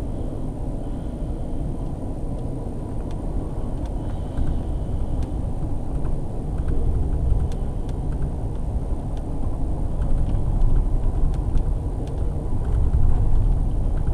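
Steady low rumble of a moving passenger train from inside the car, wheels running on the track, with faint scattered clicks over it.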